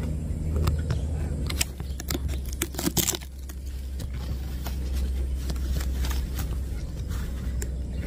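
Handling noise: scattered sharp clicks and rustles over a steady low rumble, with the loudest click about three seconds in.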